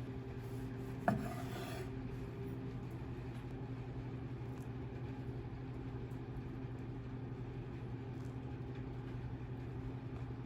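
Microwave oven running with a steady low hum, with a single click about a second in.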